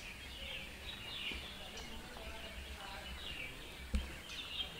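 Many small birds chirping and twittering over one another, over a low steady rumble. A single sharp thump about four seconds in is the loudest sound.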